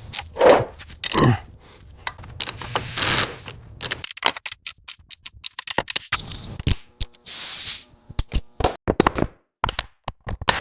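A busy run of sharp clicks, clanks and scrapes from tools and metal parts being worked, thickest in the second half. Two short hissing rushes stand out, one about two and a half seconds in and one about seven seconds in.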